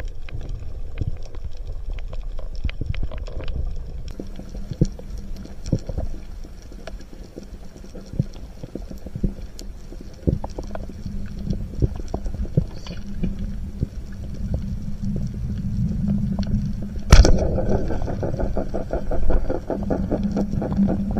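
Underwater sound picked up through a camera housing during a spearfishing dive: a low rumble with scattered sharp clicks and crackles, a steady low drone coming in about four seconds in, and one sharp loud knock about seventeen seconds in.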